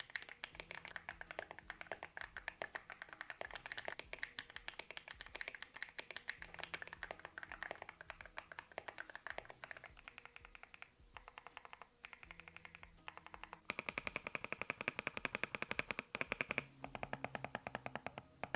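Fast typing on a mechanical keyboard, a sound test of its keycaps (ceramic against standard PBT), with the keys clacking many times a second. There are brief lulls about 11 and 12 seconds in. From about 14 to 17 seconds the clacking is louder and brighter.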